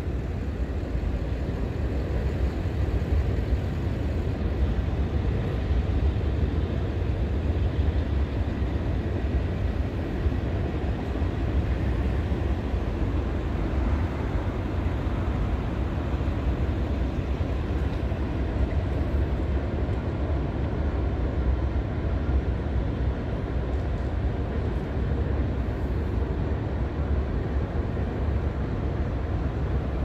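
Norfolk Southern 11Z intermodal freight train rolling across a concrete arch viaduct, heard as a steady low rumble with no horn or separate clanks.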